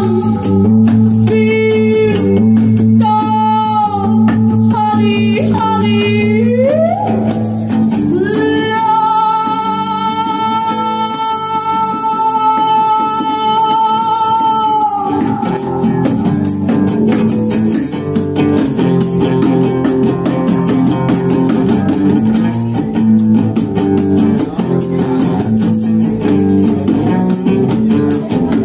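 Live band with electric bass and guitar playing a repeating groove over rattling percussion, while a woman sings into a microphone. She sings a wavering melody, slides up, and holds one long high note for about six seconds; after that the band plays on without voice.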